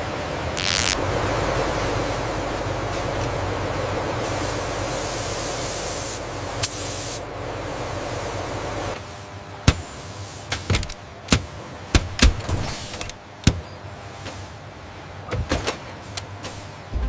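Steady machine noise with a low hum for about nine seconds. It then drops away to a quieter background with a string of sharp clicks and knocks, typical of tools and parts being handled.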